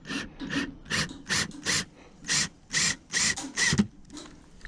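Repeated harsh scraping strokes, about ten in quick succession at roughly two a second, from hand work stripping the boat deck's carpet.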